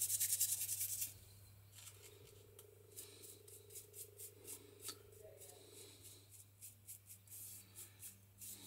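Stiff paintbrush scrubbing paint onto an MDF panel: a quick run of bristle strokes for about the first second, then fainter, scattered dabs and scrapes.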